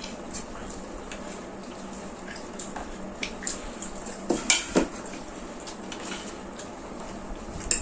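Dishes and utensils clinking and scraping as a meal is eaten, in scattered light clicks with a cluster of louder clinks a little past halfway and another near the end.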